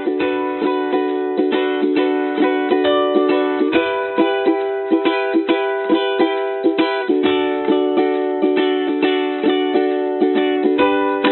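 Background music: rapidly plucked strings over sustained chords, the chord changing about every three and a half seconds.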